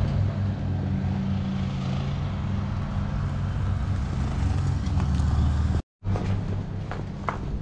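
A motor vehicle's engine running with a steady low hum. It cuts out for a moment about six seconds in, then the hum resumes.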